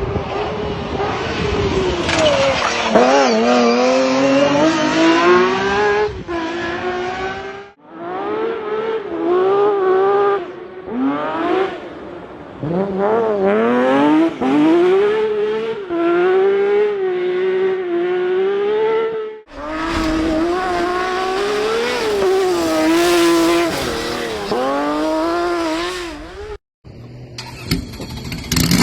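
Lancia Stratos's 2.4-litre Ferrari Dino V6 running hard at high revs, its pitch climbing and dropping again and again as it accelerates and shifts. The sound cuts abruptly between takes three times.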